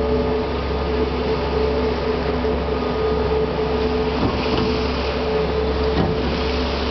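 Car ferry's engine running steadily under way: a constant low drone with a steady higher whine above it, over a wash of water and wind noise.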